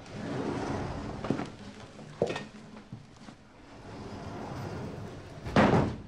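Hard objects being handled in an equipment case: rustling with a few sharp clicks, and a loud knock near the end.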